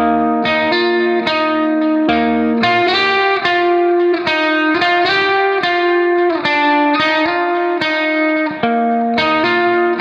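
Background music: a melody of short picked notes, each starting sharply and fading, following one another at a steady pace.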